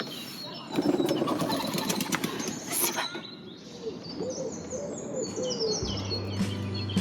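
Songbirds chirping and singing, with a pigeon's low repeated cooing in the middle. Background music comes in about six seconds in.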